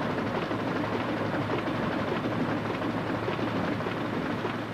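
Rotary newspaper printing press running: a steady, rapid mechanical clatter over a low hum.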